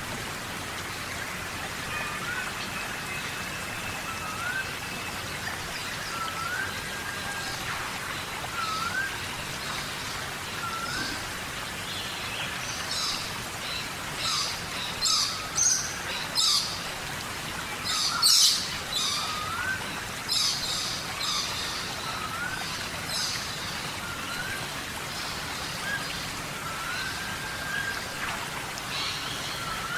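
Steady tropical rain hissing, with birds calling over it. One repeats a short rising whistle every second and a half to two seconds, and bouts of sharp high chirps come through the middle, loudest about 18 seconds in.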